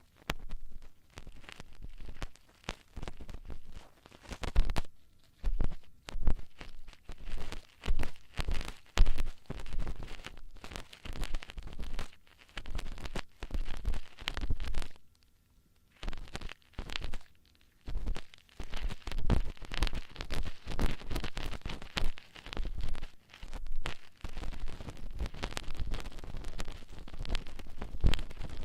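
ASMR ear-cleaning tools scraping and rubbing inside an ear microphone, close up: dense, irregular crackling scratches and clicks in quick strokes, with short pauses about four seconds in, twelve seconds in, and again around fifteen and eighteen seconds in.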